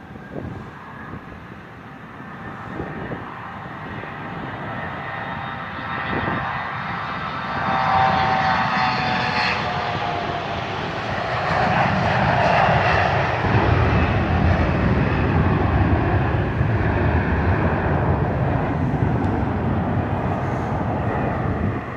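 Delta CRJ-900 regional jet's twin rear-mounted turbofans at takeoff power going past: a whine that drops in pitch about eight to ten seconds in, then a loud rumble that stays up as the jet climbs away.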